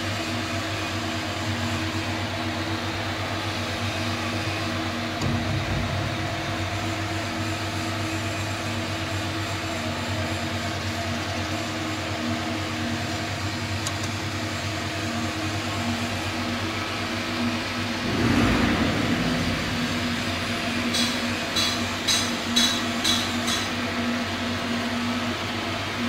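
Dongfeng Cummins 4BTA3.9 turbocharged four-cylinder diesel generator engine running steadily at its governed 1500 rpm, a constant machine hum. About two-thirds through it briefly swells into a louder rush, and near the end a few sharp metallic ticks sound over it.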